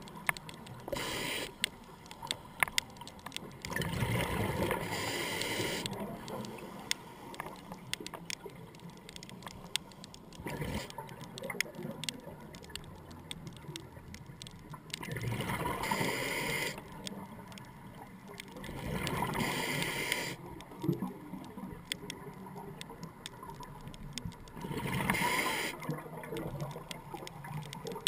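Scuba diver breathing through a regulator underwater: a rush of exhaled bubbles every four to five seconds, with faint sharp ticking in between.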